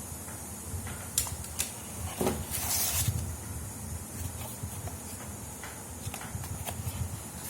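Hand-handling noises: several sharp clicks and a short rustle about two and a half seconds in, over a steady low rumble and hiss.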